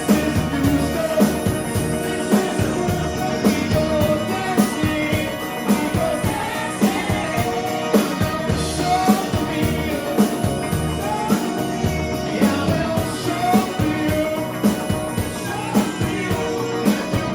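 Rock band playing with vocals over a steady drum beat.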